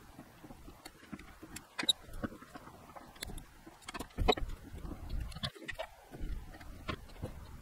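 Scattered light metallic clicks and taps of a PTO driveline universal joint's yoke and cross being handled and fitted at a brush hog gearbox, with a heavier knock about four seconds in.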